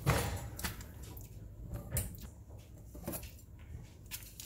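Handling noise on a kitchen countertop as a plastic pack of hot dogs and a kitchen tool are picked up: a knock right at the start, then a few soft clicks and light plastic rustling.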